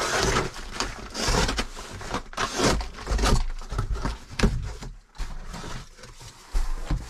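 Box cutter slitting the packing tape on a large cardboard box, then cardboard flaps scraping and rustling as the box is pulled open and handled, with scattered knocks.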